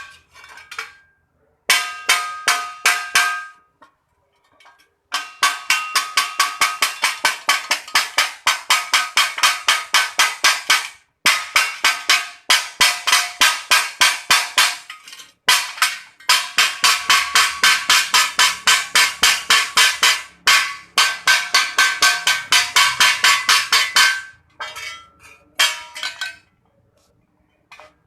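Metal being struck rapidly and repeatedly, about five ringing blows a second, in long runs broken by short pauses.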